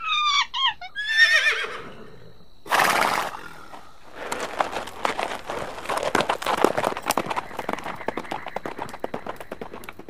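A Goeldi's monkey gives a few high, chirping calls over the first second or two. Then comes the sound of a Camargue horse: a short noisy blast, followed from about four seconds in by a long run of rapid clattering.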